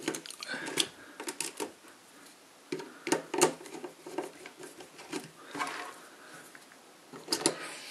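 Irregular light plastic clicks and taps from handling a small contactor during a meter test: its armature plunger being pressed in by hand and multimeter probe tips knocking against its terminals, with a short cluster of clicks near the end.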